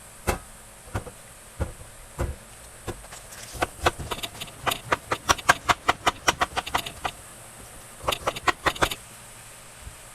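A series of sharp taps and clicks, a few scattered at first, then coming quickly at about four to five a second for several seconds, with another short run near the end.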